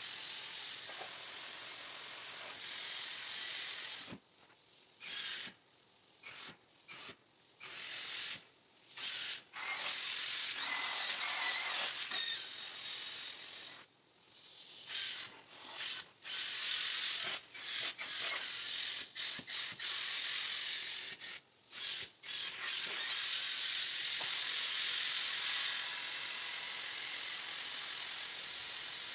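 Carpet-cleaning extractor's vacuum hose and hand tool drawing air with a loud hiss and a high whistle. The suction sound cuts in and out over a dozen times as the tool works the fabric, then settles into a steady hiss near the end.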